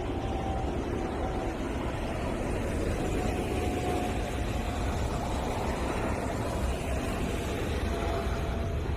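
Airliner passing overhead, recorded from the ground: a steady, low rumble with a faint whine, and some road traffic noise in the later part.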